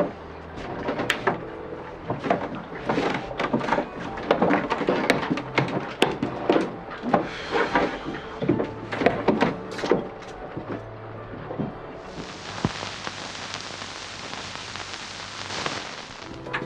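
Knocks, thumps and muffled movement as people climb out of a sailboat cabin, then a steady hiss for about four seconds near the end that stops abruptly.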